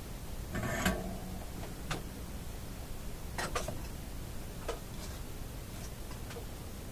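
Scattered small, sharp clicks and light rustling from hands handling a thin wire lead, about half a dozen in all, the loudest cluster near the start, over a steady faint hiss.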